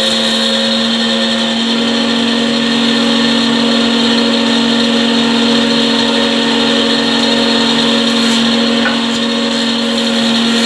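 Woodworking machinery running steadily, a constant motor hum with a higher steady whine above it.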